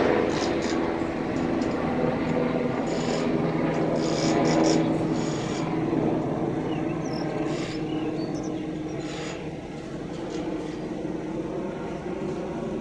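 Diesel engine of an all-terrain crane running steadily under load as it hoists a Shinkansen car, a low hum that grows quieter toward the end. Faint short high-pitched sounds come now and then.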